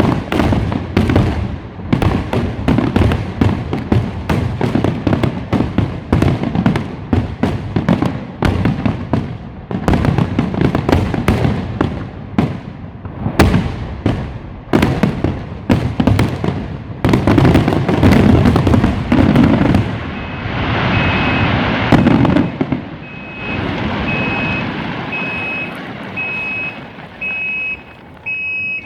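Fireworks going off in a dense, rapid run of bangs and cracks. After about twenty seconds they thin into a crackling hiss, and a high electronic beep repeats about once a second near the end.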